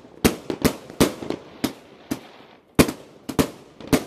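Rubro multi-shot firework cake firing: a quick, irregular string of about ten sharp bangs, with a pause of about a second in the middle.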